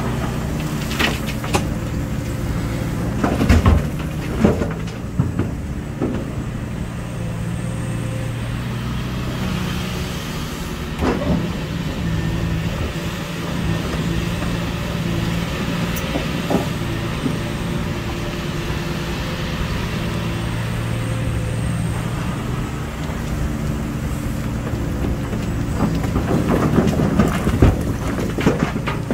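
Hitachi Zaxis 470R hydraulic excavator's diesel engine running steadily under load. Rock is dropped from its bucket into a dump truck's bed with a burst of crashing and clattering in the first few seconds and again near the end, and a few single knocks come in between.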